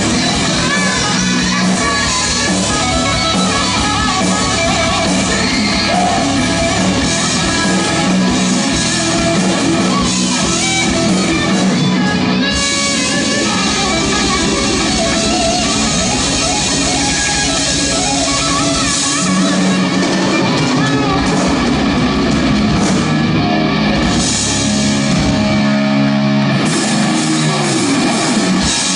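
Live rock band playing loud, with electric guitar to the fore.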